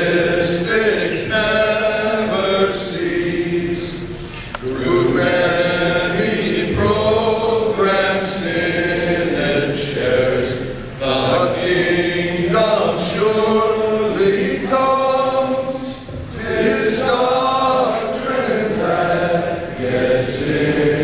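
A roomful of men's voices singing together without accompaniment, held notes in slow phrases, as in congregational hymn or liturgical chant.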